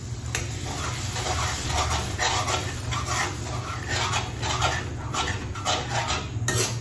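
Liquid poured into hot oil and fried onions in a kadhai sizzles, while a steel ladle scrapes and stirs against the pan in repeated strokes. A steady low hum runs underneath.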